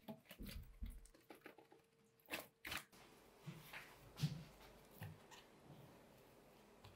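Near silence with faint, scattered light knocks and rustles: endives and a plastic colander being handled on a wooden kitchen table.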